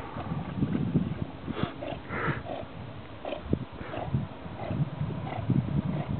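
A dog giving short, repeated whines or grunts, roughly one every half second or so, starting about a second and a half in.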